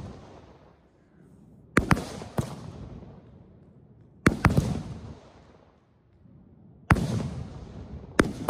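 Aerial fireworks bursting overhead: about five sharp bangs, two or three seconds apart, each trailing off in a rolling echo.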